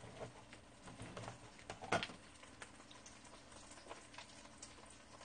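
Faint kitchen handling sounds: scattered light clicks and taps of utensils and a wok, with one louder knock about two seconds in.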